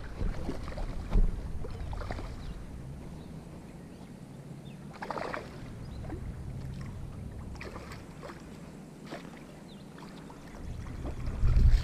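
Hooked largemouth bass splashing and thrashing in shallow water as it is reeled to the bank, in a few short splashes, with a low rumble on the microphone that swells near the end.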